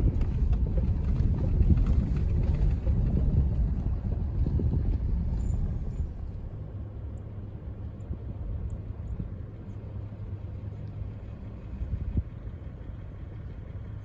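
Truck driving, heard from inside: a low engine and road rumble. About six seconds in it eases off and runs quieter and steadier.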